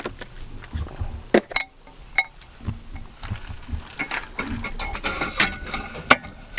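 Metal tool parts clinking and clanking as an inner tie rod tool and its adapter are handled and fitted: a few sharp separate clinks with softer scraping between them.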